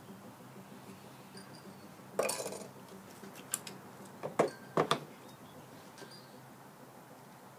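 Metal clinks and clanks from hand tools and a metal sand-casting mold flask being handled. There is one clattering knock about two seconds in, then three sharp clinks over the next few seconds.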